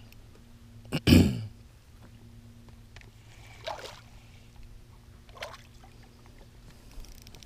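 Hooked spotted bass splashing at the water's surface beside the boat as it is reeled in: a few separate splashes, the loudest about a second in. A steady low hum runs underneath.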